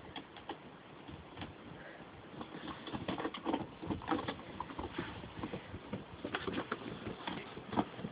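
Snow crunching in quick, irregular steps as a yellow Labrador retriever tramples about and pushes a snow shovel through it. The crunching is sparse at first and grows busier from about two and a half seconds in.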